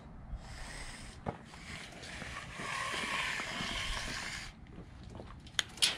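Steel tape measure blade being drawn out along a truck frame rail: a rasping whir that builds and then stops abruptly, followed by a couple of sharp clicks near the end.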